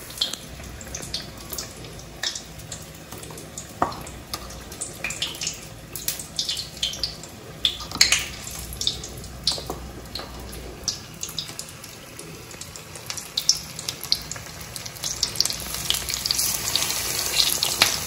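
Batter-coated sandwich pakoras deep-frying in hot oil: a steady sizzling hiss with many sharp crackles and pops, busier and louder near the end.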